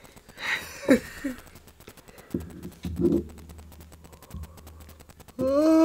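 Quiet eating noises from a seafood meal: scattered small clicks and short mouth sounds while crab is eaten. Near the end a person hums a long, wavering 'mmm'.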